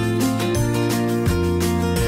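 Background music: instrumental, with a melody of pitched notes over a low bass line that changes in steps.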